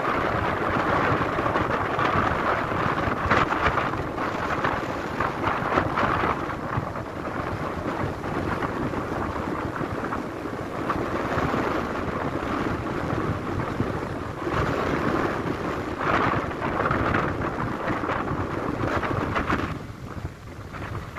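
Wind buffeting the microphone: a steady rushing rumble that rises and falls with the gusts, easing briefly near the end.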